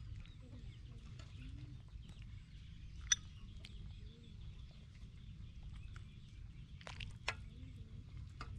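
Faint birds chirping, with a few sharp clinks of a metal ladle against the steel pot and ceramic bowl as soup is served: one about three seconds in and two more near seven seconds.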